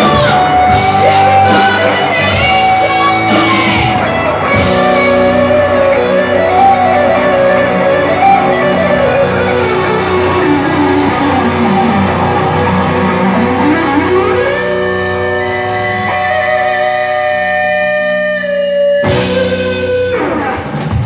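Live rock band playing loud through a club PA: electric guitars and bass holding sustained notes over drums, with cymbal hits in the first few seconds. In the middle one note slides down and back up, and a strong hit comes near the end.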